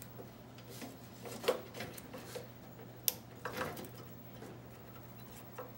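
Faint clicks and rustling from hands working among the wiring of an open vacuum-tube television chassis, with one sharp click about three seconds in, over a steady low hum.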